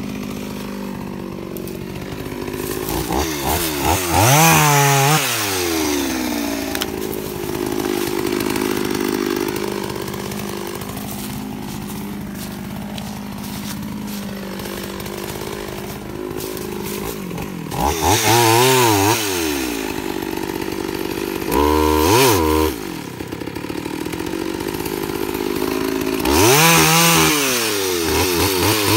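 An old Partner P70 two-stroke chainsaw, which its owner says is low on compression, idling with repeated throttle blips. It revs up and falls back a few seconds in, blips twice more past the middle, then runs at high revs as it goes into a log near the end.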